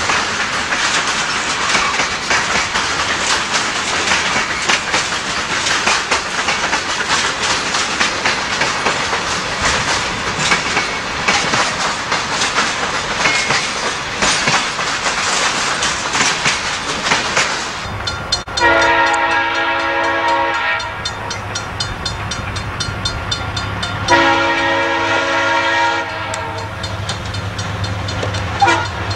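Freight cars rolling past close by, their steel wheels clicking over the rail joints. About eighteen seconds in, this gives way to the low drone of approaching SOO Line diesel locomotives, whose air horn sounds two long blasts.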